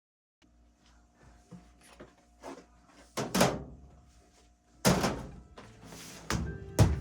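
A series of sharp household knocks and thuds, like doors or cupboards shutting, the loudest near the end, over soft background music.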